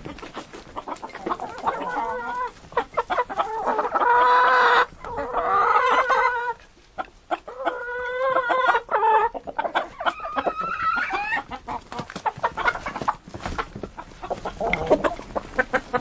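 Chickens clucking while feeding, with many short sharp taps of beaks pecking mixed in among the calls. The clucking is densest between about two and eleven seconds in.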